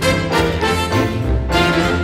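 Carousel music playing, an instrumental tune with a steady beat.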